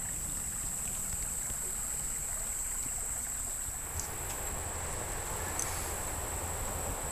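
A steady high-pitched insect drone over a low rumble of road traffic on the bridge overhead, with a couple of faint ticks.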